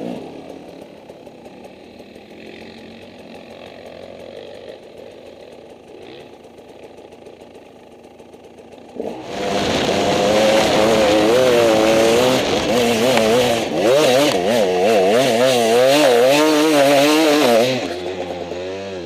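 Enduro dirt bike engine running quietly, then about nine seconds in opening up loud and revving hard under load up a steep hill climb, its pitch rising and falling with the throttle. It drops back off near the end.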